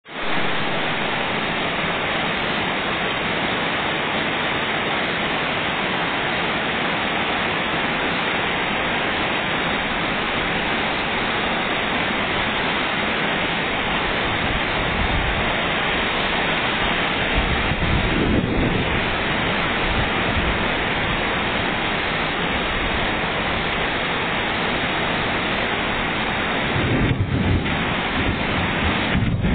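Heavy rain pouring down steadily as a dense, even hiss. Low rumbles swell up about halfway through and again near the end.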